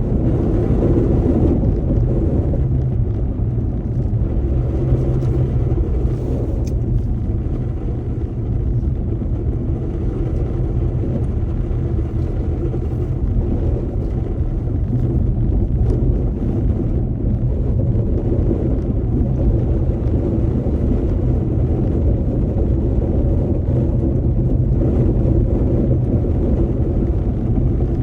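A car driving steadily, heard from inside the cabin: a constant low rumble of engine and road noise with a steady low hum and no change in speed.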